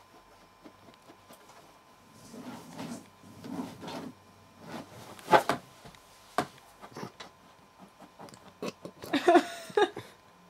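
Scratching and rubbing on an armchair's fabric while a cat is teased, with sharp knocks, the loudest about halfway through, then a run of small clicks and a short burst with a brief squeak near the end.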